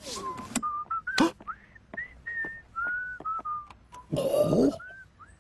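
A cartoon character whistling a short tune of brief, separate notes, some sliding upward, with sharp clicks and knocks in between. About four seconds in there is a short, louder, noisy burst.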